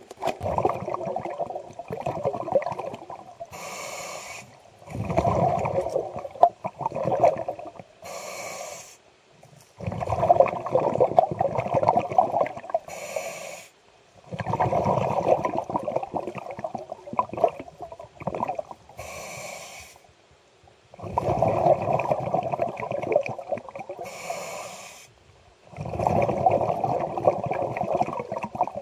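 Scuba diver breathing through a regulator underwater: a short hiss on each inhale, then a long gurgling rush of exhaled bubbles, repeating about every five seconds.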